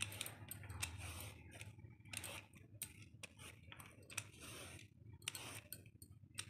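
Y-shaped vegetable peeler scraping the skin off a bottle gourd in repeated short strokes, each with a faint crisp scratch and click.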